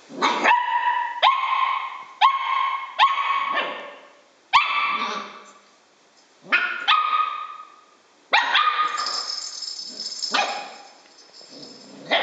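Puppy barking in short high yaps, about ten barks with gaps between them. A sharp knock comes about a third of the way in.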